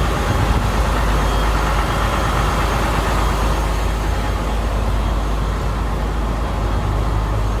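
Riverboat engine running steadily, a loud even drone with a strong low hum, heard from the lower deck.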